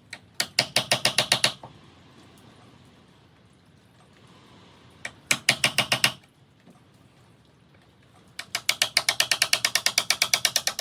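Three runs of rapid, evenly spaced sharp clicks, about nine a second, from hand tools at work on a door's hinge recess.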